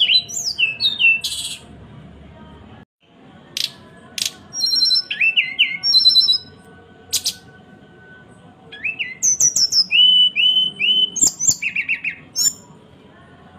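Sulingan bird giving its chattering 'cekrekan' calls: bursts of quick, short down-slurred whistled notes mixed with sharp clicks, repeated in phrases with short pauses between them.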